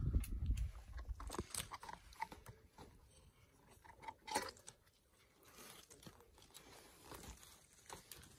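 A climber's hands and rubber-soled climbing shoes scuffing and tapping on rock as they move between holds on a boulder. The sounds are scattered short scrapes and clicks, the loudest about four seconds in.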